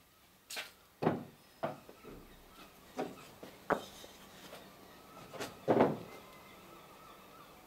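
Irregular knocks and taps of hand tools against the wooden planking of a clinker dinghy, about seven in all, the loudest one late on.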